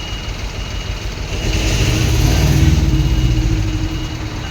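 A heavy vehicle's diesel engine revs up over a low rumble, swelling louder in the middle and easing off again. Short repeating reversing beeps sound near the start and the end.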